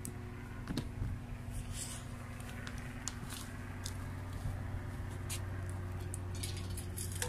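Wet firewood burning in a homemade secondary-combustion stove, crackling and popping in short, irregular snaps over a steady low hum.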